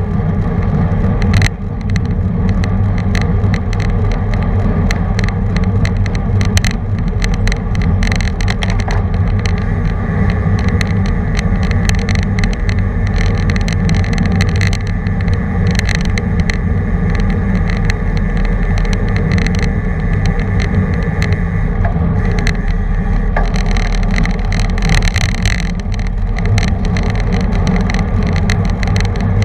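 Riding a road bike in a racing group: wind rushing over the bike-mounted camera's microphone, with tyre and road noise and frequent small clicks and knocks from the bike. A sharp knock about one and a half seconds in.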